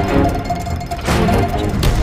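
Background music from a watermarked AudioJungle stock preview track, with sustained tones and percussion hits.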